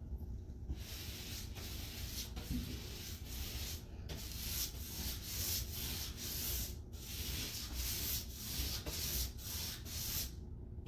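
Paint being applied to a freshly plastered wall in repeated rubbing back-and-forth strokes, about two a second, with short pauses about four and seven seconds in.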